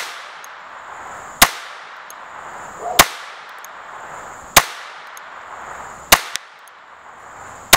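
Sterling Arms .25 ACP pocket pistol firing a steady string of six shots, about one every second and a half. Each sharp crack has a short echoing tail.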